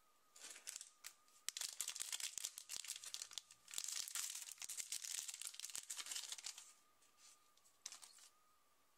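A foil blind bag being torn open and its wrapper crinkled: a dense run of crackling and tearing from about half a second in until nearly seven seconds, then a couple of brief crinkles near the end.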